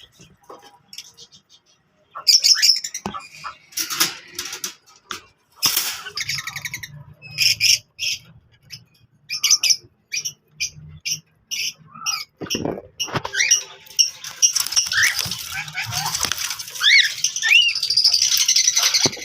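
Pet parrots and lovebirds in a shared cage calling: short, sharp squawks and chirps. About two-thirds of the way in they build into dense chatter of many birds at once, with rising and falling whistled notes.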